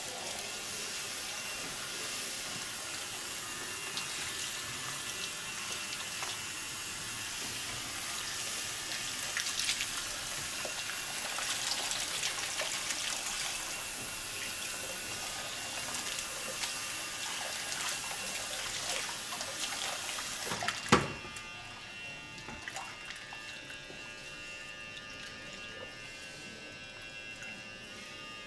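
Water running from a tap, a steady hiss, broken by a sharp knock about 21 seconds in, after which the hiss drops away and it is quieter.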